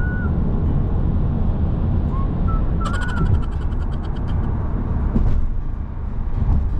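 Steady low rumble of a moving vehicle, with wind rushing over the microphone and a few light rattles about three seconds in.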